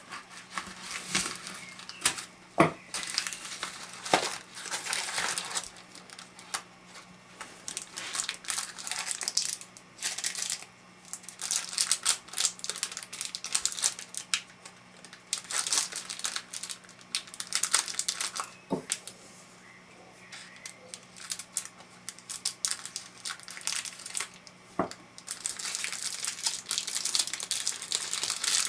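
Paper and thin plastic packaging crinkling and rustling in bursts as it is unwrapped by hand, with a few sharp clicks.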